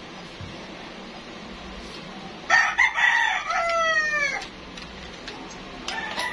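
A rooster crowing: one loud crow about two and a half seconds in, lasting nearly two seconds and dropping in pitch at its end, then a second, quieter crow starting near the end.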